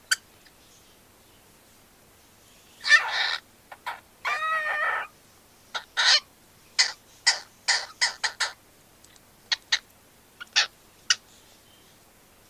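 Cockatiel calling: a harsh call about three seconds in, then a longer, wavering call, followed by a string of short, sharp chirps.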